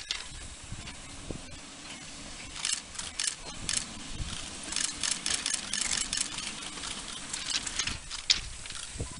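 Narrow-gauge steam train with goods wagons rolling along the track, its wheels, couplings and running gear clattering and rattling, with a brief sharp squeal near the end.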